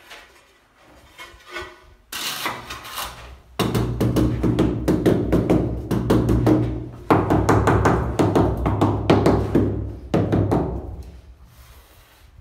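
Rubber mallet tapping a large stone-look ceramic tile in quick repeated strokes, bedding it into the combed tile adhesive on the wall. The tapping starts about two seconds in and stops near the end.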